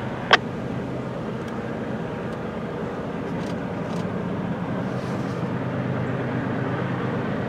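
Diesel locomotives of an approaching freight train heard from a distance: a steady low engine drone with several held low tones, slowly getting louder. One sharp click shortly after the start.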